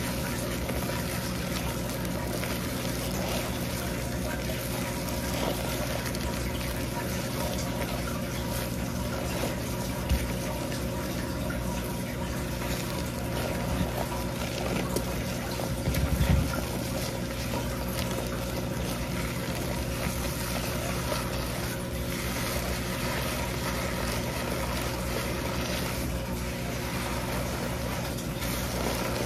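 Steady rush of running tap water, with a low steady hum underneath. Two faint knocks, about ten and sixteen seconds in.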